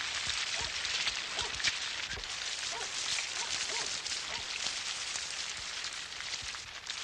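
Steady rain falling: an even hiss with many small drop ticks through it.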